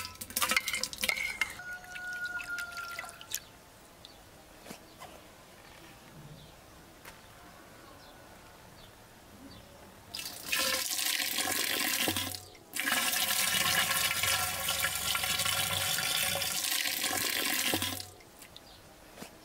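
A few clattering knocks at the start. From about halfway through, liquid pours or runs hard into a container for about eight seconds, with a brief break, then stops suddenly.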